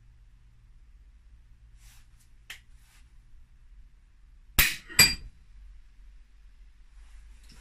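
Shot from a BSA Ultra SE air rifle sending a light lead-free .177 pellet into a one-inch decking board: two sharp cracks about half a second apart, the second with a brief ringing tone.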